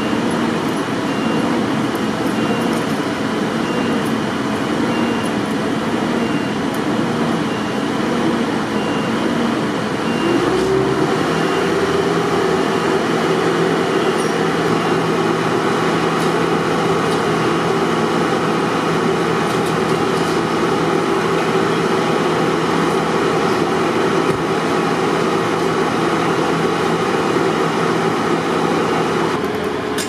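A heavy vehicle's engine runs steadily over street traffic noise. About ten seconds in, a new steady hum joins it and holds.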